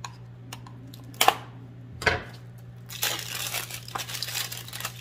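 Packaging being unwrapped by hand: a few separate knocks and rustles, then about two seconds of steady crinkling and tearing near the end.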